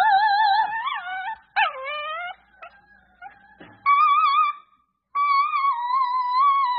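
A small long-haired dog howling in a run of high, wavering notes, with a woman howling along. One note slides down, and the last is held for several seconds.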